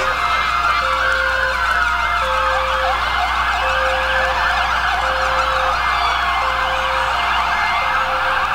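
Several emergency-vehicle sirens wailing at once, their pitches overlapping as they rise and fall. A low tone beeps steadily about once a second beneath them.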